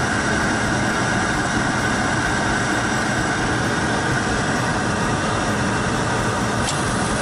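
Lennox GCS16 rooftop gas heating unit running with a steady whir during a start-up attempt to get the burner to fire.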